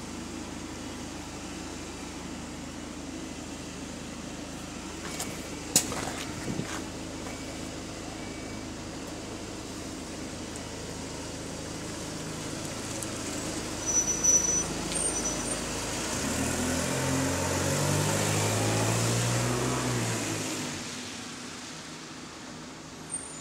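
Alexander Dennis Enviro200 single-deck bus idling with a steady hum, its engine in limp mode. A sharp click sounds about six seconds in, and a few short high beeps and clunks come shortly before it moves. The bus then pulls away, the engine growing louder and rising before fading as it drives off.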